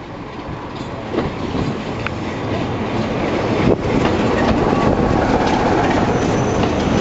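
British Rail Class 25 diesel locomotive D7671, with its Sulzer engine, running into the platform hauling coaches. The sound of the engine and the wheels on the rail joints grows louder as it passes close by, and a faint high squeal comes in near the end.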